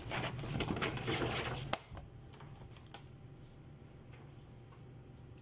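Paper pages of a service manual rustling as they are handled, ending in a sharp click a little under two seconds in; then a quiet room with a low steady hum.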